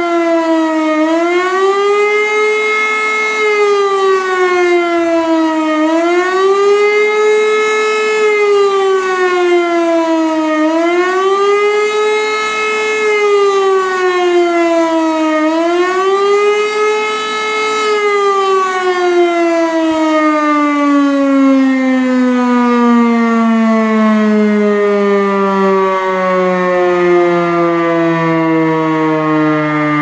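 E57 electromechanical civil-defence siren sounding the wavering up-and-down wail of the warning signal, its pitch rising and dipping about every five seconds. A little past halfway the wail stops and the siren winds down in one long falling tone.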